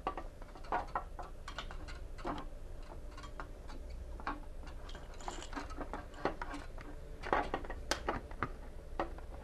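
Handling noise of a cable being fed through a trolling motor's coiled power cord: light, irregular clicks, taps and rattles of cord against the plastic motor housing, with a few louder clicks about seven to eight seconds in.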